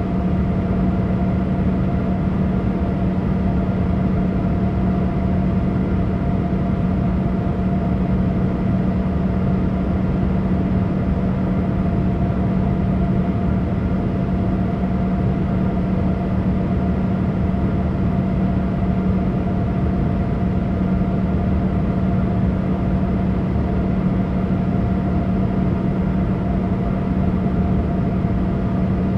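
Boeing 787 cabin noise: a steady rush of engine and air noise with a constant low hum, unchanging throughout.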